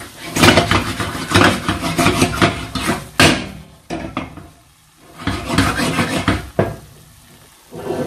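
A spoon stirring a pan of cooking ratatouille, scraping and clicking against the pan over a light sizzle. It comes in two bouts, with a sharp knock about three seconds in.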